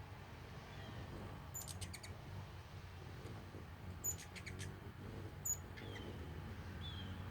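Hummingbirds chirping: three clusters of sharp, very high ticking chirps, then a few short falling notes, over a steady low background hum.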